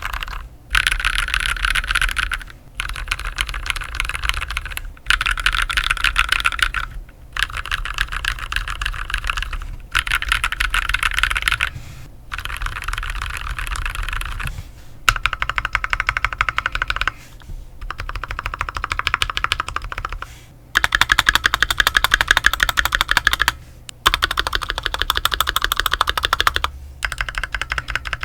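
Fast typing on a mechanical keyboard with lubed Holy Panda tactile switches, a brass plate and GMK keycaps: dense key clacks in runs of about two seconds with short pauses between them.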